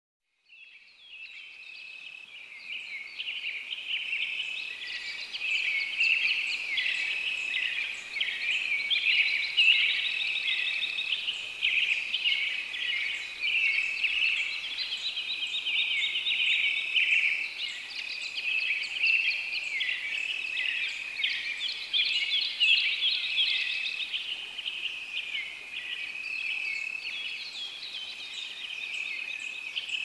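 A dense chorus of many small birds chirping over one another, fading in at the start.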